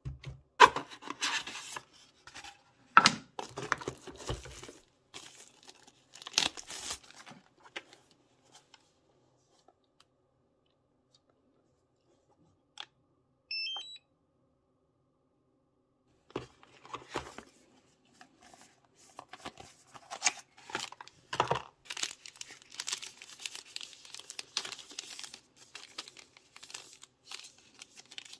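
Unboxing handling noise: clicks and knocks of plastic parts against the cardboard box, then plastic packaging sleeves crinkling and rustling through the second half. About halfway through, a short rising run of electronic beeps from the DJI RC controller powering on.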